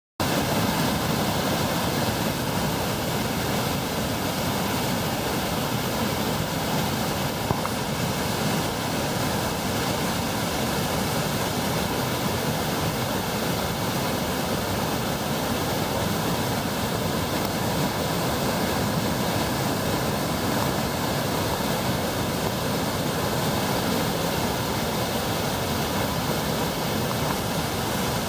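Waterfall in heavy white-water flow, pouring over rock ledges: a steady, unchanging rush of falling water.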